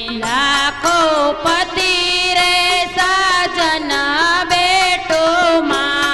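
A woman singing a slow, ornamented Indian melody into a microphone, her voice gliding between notes, with musical accompaniment beneath.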